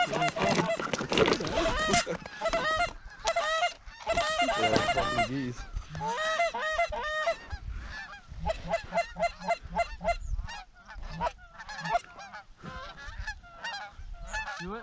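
Canada geese honking and clucking, many short calls overlapping in quick succession, as a flock works toward the decoys.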